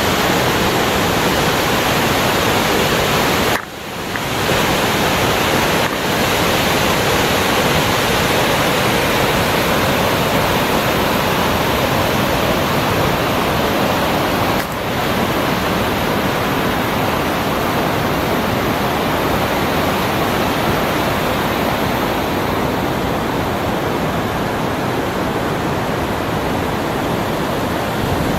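Waterfall: loud, steady rushing of falling water, briefly dropping in level twice, about four and fifteen seconds in.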